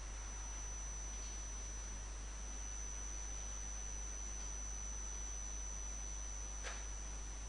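Steady recording background: a constant high-pitched whine and a low electrical hum under faint hiss, with one faint click near the end.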